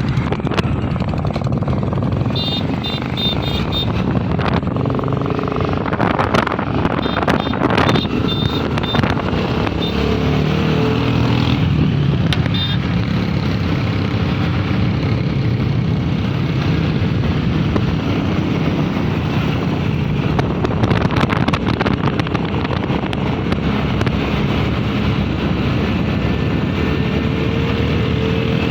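Royal Enfield Bullet 350's single-cylinder engine running loud through a long Punjab aftermarket silencer, with the exhaust pitch rising and falling about a third of the way in and again near the end as the throttle is worked.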